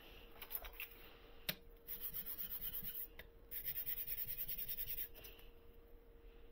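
A small brass printing plate is scrubbed back and forth by hand on sandpaper laid over a stone slab, in two runs of quick, even strokes, with a single knock before the first. The face is being sanded down so that the thin webs of the engraved crosses come in thicker.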